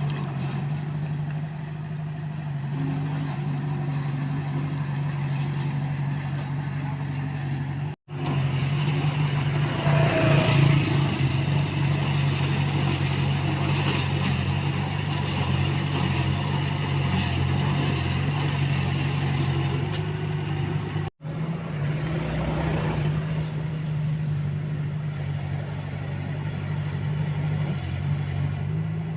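Komatsu D21A bulldozer's diesel engine running steadily while working, with a louder surge about ten seconds in.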